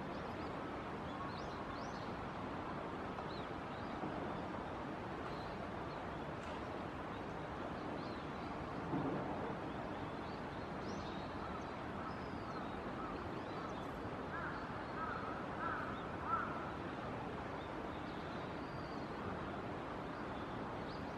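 Steady rush of moving water, with scattered short bird calls over it, a few of them grouped about two-thirds of the way through.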